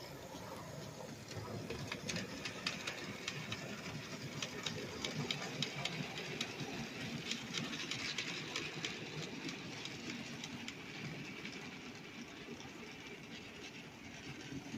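Model railway train running on its track: a small electric motor whirring, with many fine clicks from wheels rolling over rail joints, the clicking busiest in the middle.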